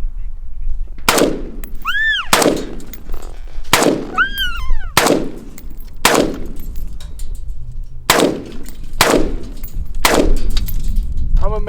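Gunfire: about eight sharp gunshots in irregular succession, roughly a second apart, each with a short echoing tail, over a low rumble of wind on the microphone.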